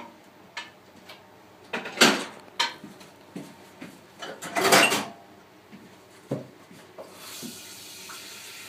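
Knocks and clatters of objects being handled on a tabletop, a dozen or so irregular hits with the loudest about two seconds in and a longer clatter around four to five seconds in. A steady hiss comes in near the end.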